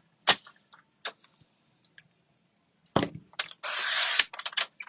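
Paper being cut and handled: a few sharp clicks and snips, then about three and a half seconds in a rasping cut lasting about half a second, followed by quick clicks.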